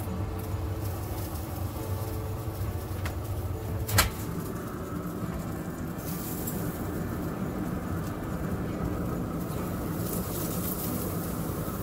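Pit Boss pellet grill running with a steady mechanical hum from its fan, with a sharp knock about four seconds in.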